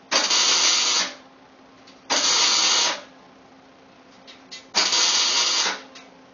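MIG welder laying three short welds on a steel exhaust header collector, each a crackling, sizzling burst of about a second that starts and stops sharply with the trigger.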